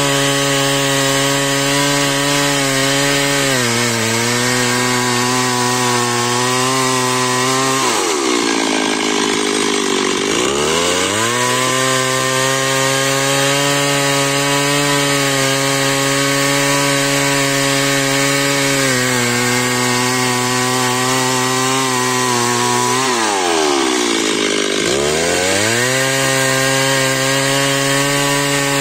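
Chainsaw ripping lengthwise along a squared timber in a freehand milling cut, its engine running steadily at high speed under load. Twice, about 8 and 23 seconds in, the engine note drops sharply and climbs back up.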